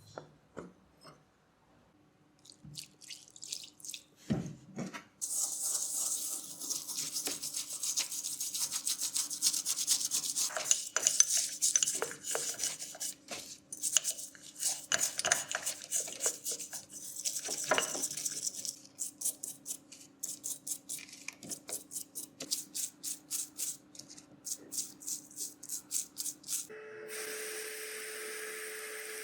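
Scrubbing or rubbing strokes by hand on a part being cleaned: a dense run of fast strokes, then slower, separate strokes about two a second. Near the end a steady hiss with a low hum comes in.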